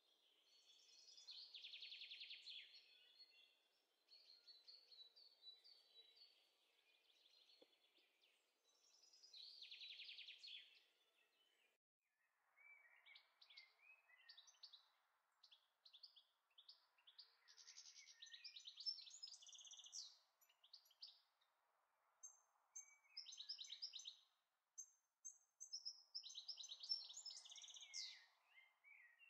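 Faint songbirds chirping, with a couple of rapid trills in the first half and a denser run of short chirps later, over a low background hiss.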